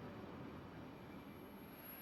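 Faint rumble of a distant commuter train, slowly fading, with a thin high whine coming in near the end.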